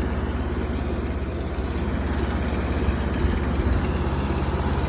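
Mini excavator's engine running steadily with an even low throb.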